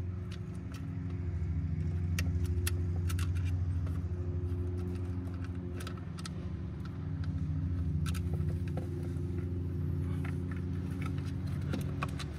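Light clicks and taps of metal hydraulic hose fittings and the plastic pump body being handled as the hoses are worked into a Volvo Penta SX-A power trim/tilt pump, over a steady low hum.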